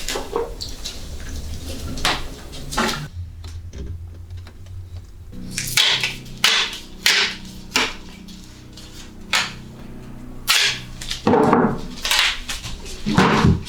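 A series of irregular sharp knocks and clicks, a dozen or so spread over several seconds, some closely grouped, over a low steady hum.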